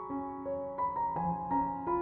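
Background piano music: a gentle, slow melody of single sustained notes.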